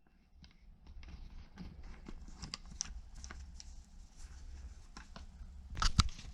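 Scattered light clicks and taps of objects being handled, over a low hum, with a louder clunk near the end.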